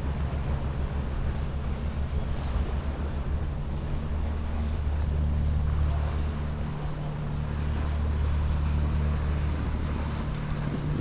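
Wind buffeting the microphone in a steady low rumble, over the wash of sea waves.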